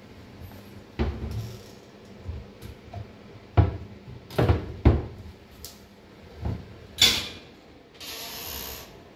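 Wooden kitchen cabinet doors being opened and closed by hand: a series of knocks and thuds from the doors and their knobs, the loudest in the middle, followed near the end by about a second of rushing noise.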